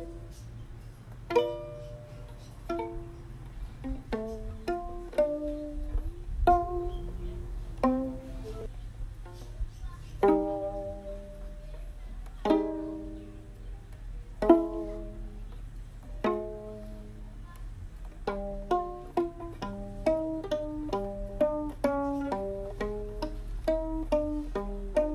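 Background music of plucked strings playing single notes that ring and die away, slow and spaced at first, then a quicker run of notes from about two-thirds of the way in.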